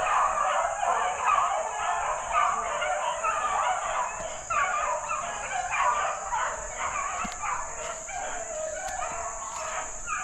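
A pack of rabbit hounds baying on a running rabbit's trail, many overlapping barks and bawls that continue throughout. A steady high buzz runs underneath.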